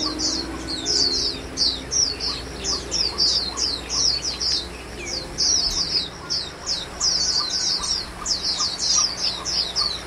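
White-eyes (pleci) chirping: a dense, unbroken run of short, high, downward-slurred chirps, several a second.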